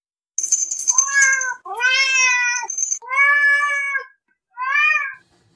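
A domestic cat meowing four times, each meow about half a second to a second long, the second and last rising and falling in pitch. A high thin steady tone sounds over the first two meows.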